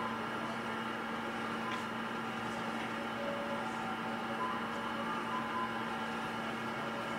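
Steady electrical hum and hiss, with a low hum and a few faint fixed tones over it, unchanging throughout.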